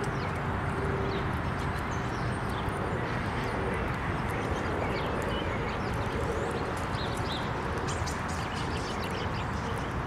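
Outdoor ambience: a steady rushing noise with scattered short bird chirps and calls throughout.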